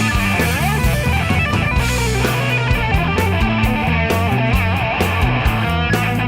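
Rock music: an electric guitar playing a lead line over bass and a steady drum beat.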